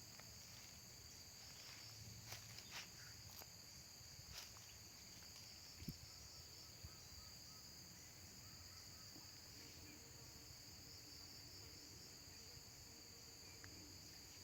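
Faint, steady high-pitched insect chorus drone, with a few light clicks between about two and six seconds in.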